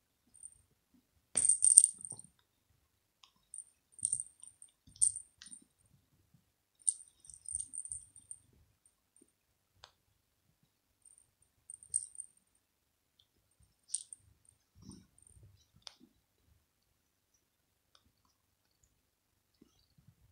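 Small jingle bell on a cat's plush ball toy jingling in short bursts as the toy is shaken and pawed. The jingles come every one to three seconds and stop about three-quarters of the way through.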